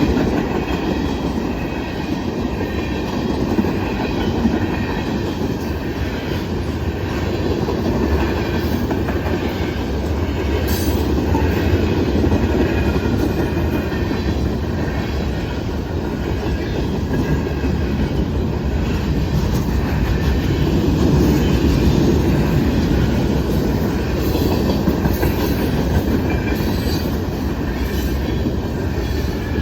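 Freight cars of a Norfolk Southern manifest train rolling steadily past a grade crossing: a continuous heavy rumble with wheels clacking over the rail joints and faint high-pitched wheel squeal.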